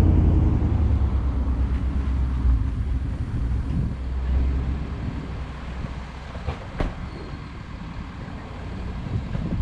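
A vehicle's low rumble, gradually fading, with one sharp click about seven seconds in.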